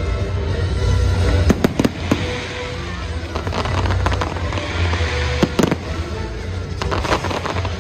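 Aerial fireworks bursting overhead: clusters of sharp bangs about a second and a half in, around two seconds, near five and a half seconds and again near seven seconds, over show music with a steady heavy bass.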